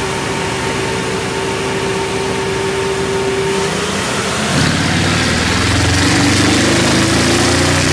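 Porsche Cayenne Turbo S E-Hybrid's twin-turbo V8 running through a catless, GPF-delete exhaust. At first it is a low pulsing with a thin steady whine over it. About four and a half seconds in the exhaust gets louder and deeper, its pitch slowly climbing.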